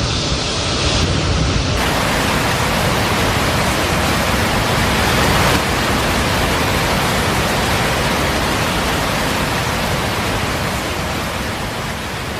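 Loud, steady rush of water, an even noise with no rhythm, which shifts in character about two seconds in and again near six seconds.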